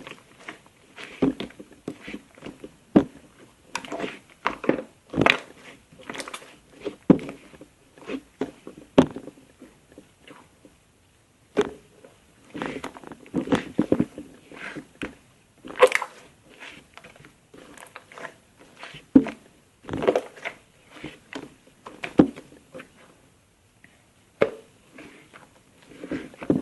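Slime being squeezed and pressed by hand, making irregular wet squelching pops and crackles with short pauses between handfuls.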